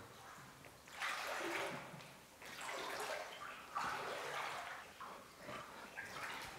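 Footsteps splashing and wading through shallow water on a flooded bunker floor: a few separate sloshing steps about a second apart.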